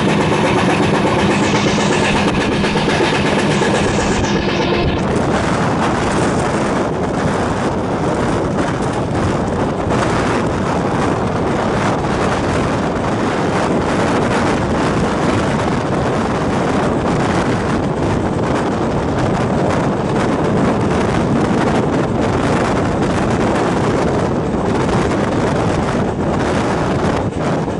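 Passenger train coach running at speed, a steady rumble of wheels on rail with wind buffeting the microphone at the open doorway. For the first five seconds a steady whine rides on top of it, then stops.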